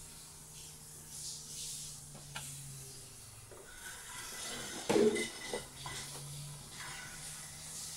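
Handling noises from a hand on a plastic RC drift-car body: light rubs and small clicks, with a louder knock and rub about five seconds in, over a faint steady hiss and a low hum that comes and goes.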